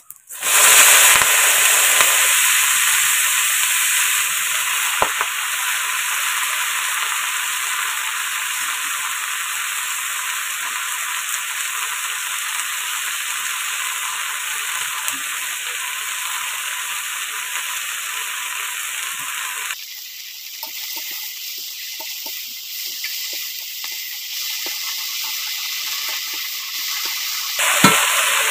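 Chopped water spinach (kalmi greens) hitting hot oil in a large wok and frying with a loud, steady sizzle that slowly eases. About twenty seconds in the sizzle drops and thins, then it flares up again briefly near the end.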